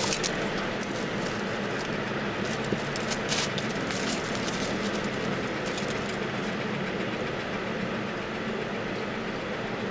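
Plastic bag and foam fish trays crinkling and clicking as they are handled, over a steady low hum. The crinkles bunch in the first half and thin out later.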